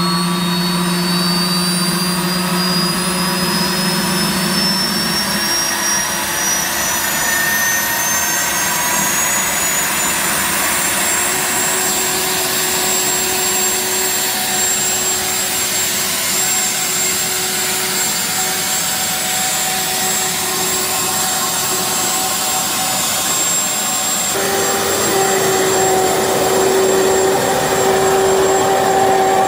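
Military-surplus Boeing jet engine (from a U.S. Navy drone helicopter) running in a jet-powered car, its high whine climbing in pitch over the first ten seconds as it spools up, then holding steady. The sound shifts about 24 seconds in, with a steadier, stronger drone after.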